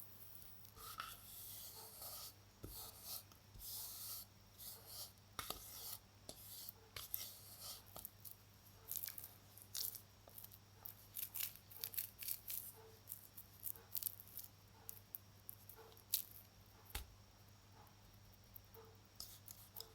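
Baking soda being crumbled and worked by hand: a run of irregular soft crackles and crunches, thicker in the middle and thinning out near the end.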